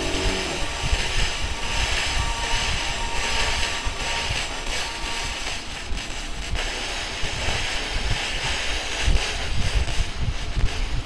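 200 W pulsed laser cleaner stripping paint and film from a car body panel down to bare metal: a steady hiss that swells and fades as the beam scans, over a low uneven rumble.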